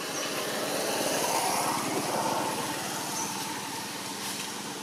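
A passing motor vehicle: engine and road noise swelling over the first couple of seconds, then slowly fading.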